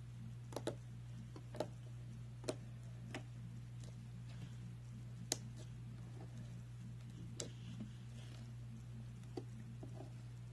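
Fluffy slime being handled, giving scattered small clicks and pops as air pockets burst, about nine in all at uneven gaps, over a steady low hum.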